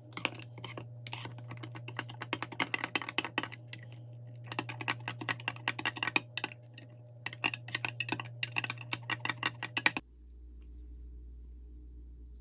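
Typing on a keyboard: rapid key clicks in three runs, stopping abruptly about ten seconds in.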